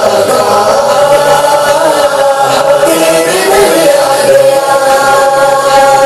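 Chanted vocal music with long held notes, played loud through an Audionic Mehfil MH-30 Advance portable speaker as a sound test.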